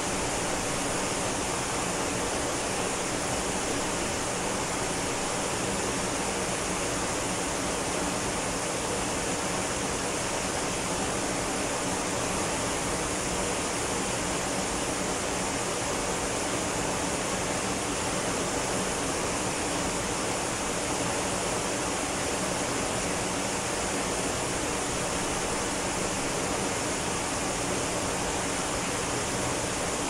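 Ōko Falls, a tall waterfall, pouring down a rock face into its plunge pool: an even, unbroken rush of falling water.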